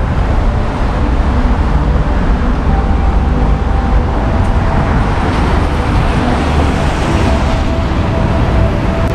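Steady city traffic noise on a wet street, with no single event standing out.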